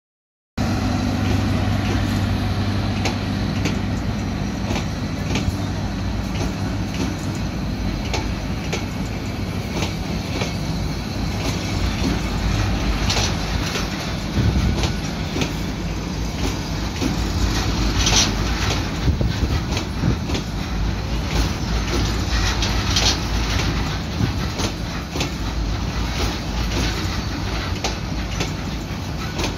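Passenger coaches of a Bangladesh Railway intercity train rolling past over a steel girder rail bridge: a steady rumble of wheels on rail with a running clickety-clack of wheels over the rail joints.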